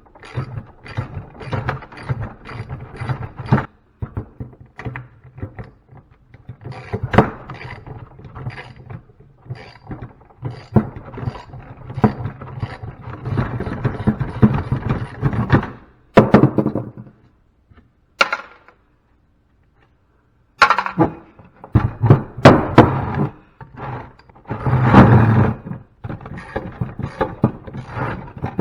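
Hand tools knocking, tapping and clattering against a scrapped unit's metal parts as it is pried and broken apart to free the copper windings and brass. The knocks come irregularly, with a short silent pause about two-thirds of the way through.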